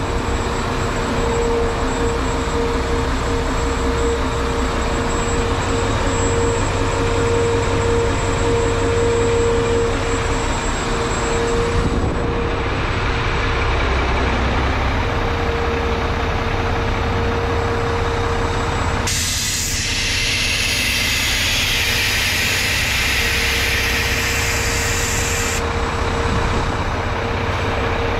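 A 2011 Mack GU713 dump truck's diesel engine running steadily, with a constant whine over it. About two-thirds of the way through, a loud hiss of air cuts in, lasts several seconds, then stops suddenly.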